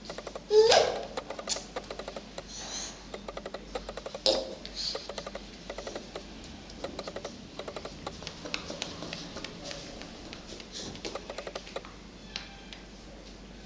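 A toddler's short vocal squeals, the loudest a rising squeal about half a second in and briefer ones around three and four seconds, over a continual patter of light, irregular clicks.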